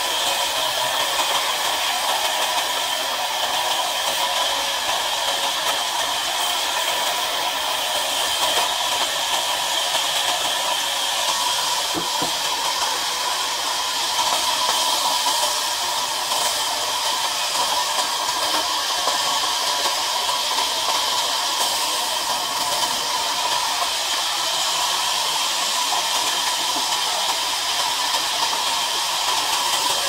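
Large log band saw running steadily while sawing timber: a continuous whine over hissing noise.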